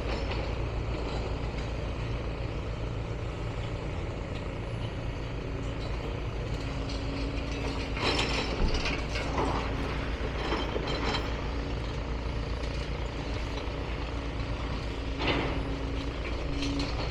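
Demolition machinery at work: a diesel engine running steadily, joined by a steady whine about six seconds in, with scattered clanks and crashes of material being handled and separated.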